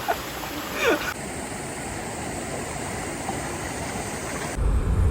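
Mountain stream water rushing, a steady wash of noise, after a brief voice in the first second. Near the end it cuts to a loud low rumble.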